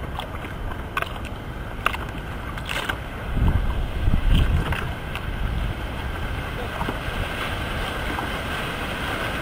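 Wind buffeting the microphone over open sea, with the wash of ocean water and a few sharp clicks early on; the strongest gusts come about three to five seconds in.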